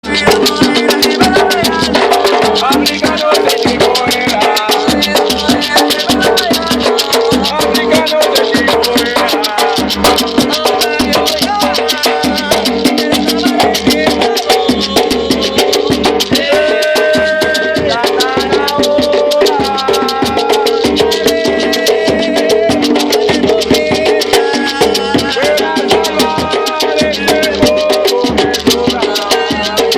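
Batucada percussion playing a fast, steady rhythm of dense drum and shaker strokes, with voices singing over it.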